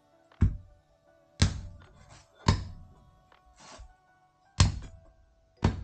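Meat cleaver chopping bone-in mutton on a wooden log block: five heavy strikes about a second apart, with lighter knocks between them. Background music plays underneath.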